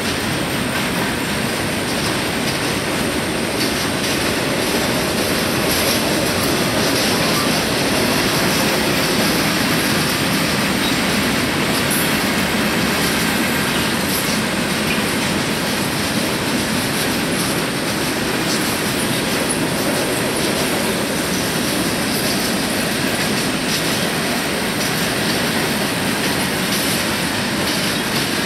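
Freight train's cars (autoracks and boxcars) rolling past at a steady speed: a continuous, even noise of steel wheels running on the rails.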